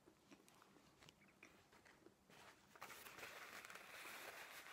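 Faint chewing, a few soft mouth clicks, then a little over two seconds in a soft, even rustle of a paper napkin being rubbed over the lips.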